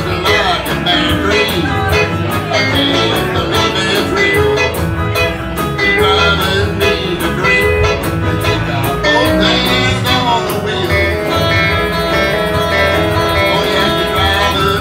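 Live country band playing: electric guitars over bass and a steady beat.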